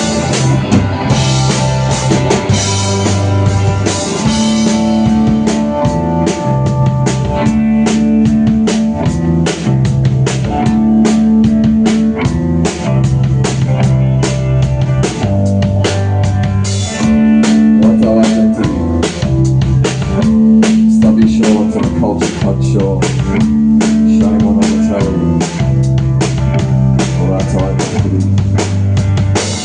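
Live band playing an instrumental passage: a drum kit keeping a steady beat with guitar over a repeating low bass line, without vocals.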